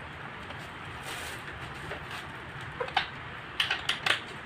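Office-chair armrest knocking and clicking against the seat frame as it is fitted by hand: two sharp clicks about three seconds in, then a quick run of four near the end, over a steady background hiss.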